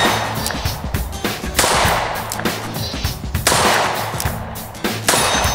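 Colt King Cobra .357 Magnum revolver fired four times, about one shot every 1.7 seconds, each report followed by a long fading echo, over background music.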